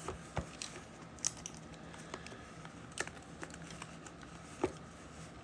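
Hands handling a cardboard trading-card hobby box as it is opened: scattered light taps and clicks of fingers and cardboard, a few sharper ones about a second in, three seconds in and near the end.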